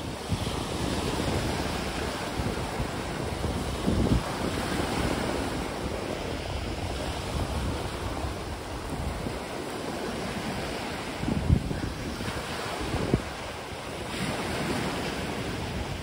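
Wind rushing across the phone's microphone in a steady noise. A few stronger low buffets come about four seconds in and twice more later on.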